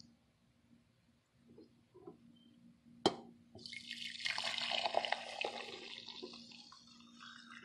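Water poured through a wire-mesh kitchen strainer into a pot, splashing; the pour starts about three and a half seconds in after a single sharp knock and tapers off toward the end.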